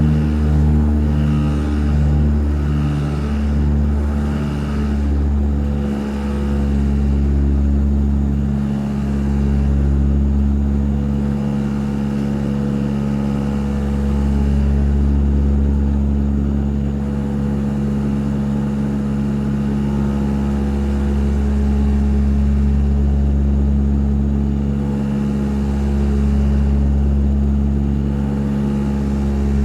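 Light aircraft's piston engine and propeller running at a steady drone, with slow swells and dips in loudness every few seconds.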